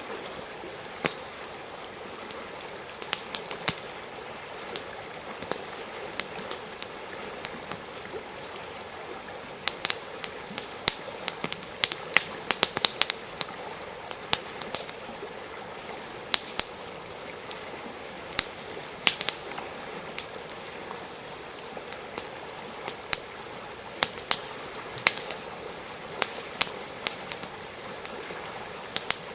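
Wood campfire crackling, with sharp irregular pops that come thickest about a third of the way in, over a steady rushing hiss.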